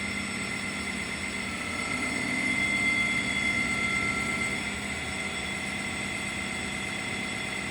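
Baker sawmill running steadily with a held whine while the setworks drives the sawhead down; the sound is a little louder for the first few seconds and eases off about five seconds in.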